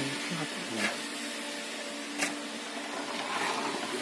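A machine's motor running steadily with a constant hum and whine, with two sharp clicks, about a second and two seconds in.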